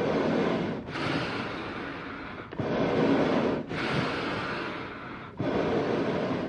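Slow, heavy animal breathing with a rough, raspy texture. A strong breath comes about every two and a half to three seconds, each followed by a longer breath that fades away.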